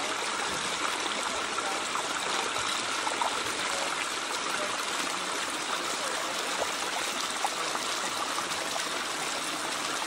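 Small pondless backyard waterfall: water cascading over granite boulders into a shallow rocky stream, a steady splashing and trickling with small droplet plinks through it.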